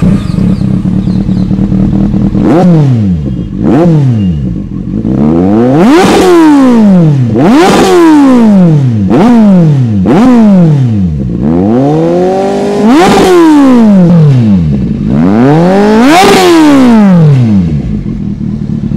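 Kawasaki Z800's 806cc inline-four engine through an aftermarket Two Brothers carbon-fibre exhaust, idling and then revved in a series of about eight sharp throttle blips, each rising and falling back, the one near the end held longer before it drops back to idle.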